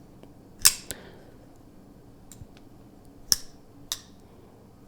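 Sharp metallic clicks of a titanium frame-lock folding knife being handled, opened and closed: two louder clicks about 2.7 seconds apart, with a few fainter ticks between and after.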